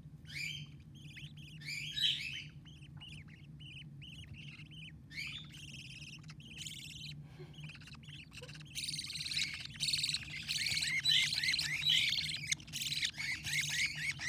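Baby budgerigar chicks chirping: scattered short calls at first, then from a little past halfway a dense, louder run of rapid repeated chirps, typical of chicks begging to be fed.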